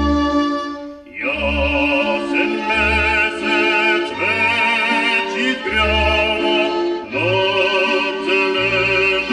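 Bulgarian Strandzha folk music playing without a voice. A held note fades out about a second in, then an ornamented, wavering melody starts over sustained accompanying notes and a steady bass beat.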